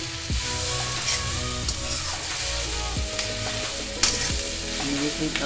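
Capsicum and soya chunks sizzling in an iron kadhai, with a steel spoon stirring and scraping through them and a few sharp clinks against the pan.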